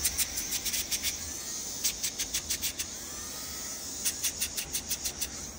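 Podiatry micromotor spinning a sanding disc against a fungus-damaged toenail: a steady high whine, broken by groups of rapid scraping strokes each time the disc is pressed to the nail.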